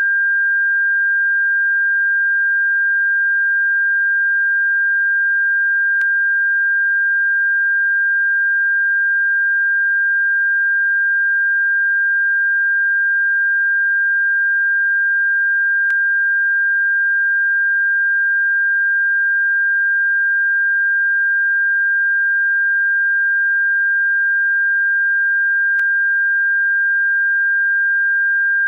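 A single steady, high-pitched electronic sine tone played as a bird-repellent sound, holding one pitch without change. A faint click comes about every ten seconds.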